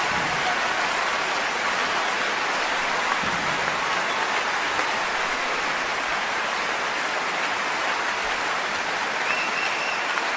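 Large audience applauding steadily after a performance.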